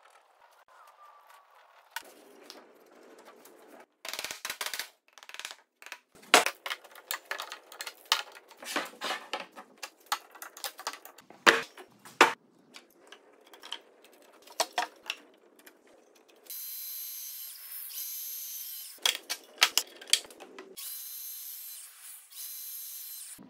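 Sharp wooden knocks and clacks of pieces being handled and set down. Then a Festool Domino joiner runs in two bursts of a few seconds each, a steady high whine, cut off abruptly.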